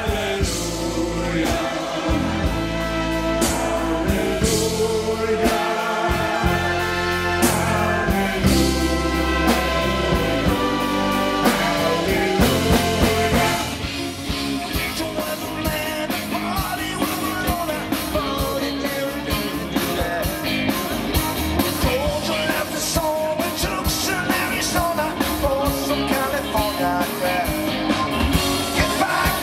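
Live rock band with electric guitars, drums and singing. About halfway through the music changes abruptly to a lighter passage with less bass.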